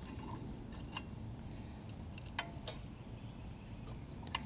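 Feeler gauge blade working between the rocker arm and valve stem of a Briggs & Stratton Intek 19.5 HP engine as the valve clearance is checked. It gives a few light metal clicks about one, two and a half and four seconds in, over low background noise. The blade drags in the gap, a sign the clearance is set about right at 0.004 in.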